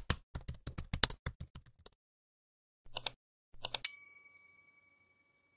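Rapid key clicks like typing, then after a pause two more short clusters of clicks. A single bright bell-like ding follows and rings out, fading over about a second and a half.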